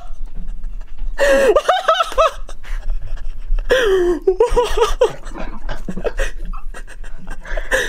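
A person laughing excitedly, in two main bursts about a second in and around the middle, with quieter traces between.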